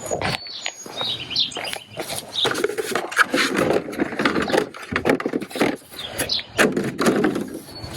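Rustling and clicking handling noise as a cable and its packaging are unpacked, with a few short high chirps.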